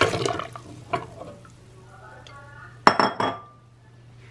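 Broth pouring into a non-stick pot, trailing off in the first half-second, followed about three seconds in by two or three sharp, ringing clanks of metal cookware being knocked together.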